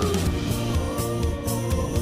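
Background music with a steady beat and held instrumental tones.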